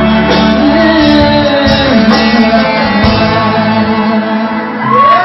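Live band playing with guitar and a woman singing into a handheld microphone. Near the end the bass and drums drop out and the crowd starts shouting and cheering.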